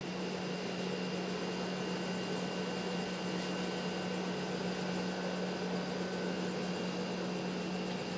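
Steady mechanical hum with one constant low tone and a few fainter high tones over a steady noise bed, unchanging throughout.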